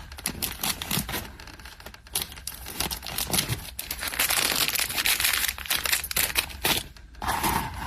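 Close-up handling of fine gold-coloured jewelry chain, jump ring and pliers: a busy run of small metallic clicks and rustling, densest about halfway through.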